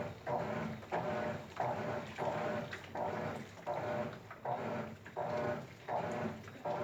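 GE top-load washing machine agitating: regular swishes of water and clothes as the agitator turns back and forth, about three strokes every two seconds.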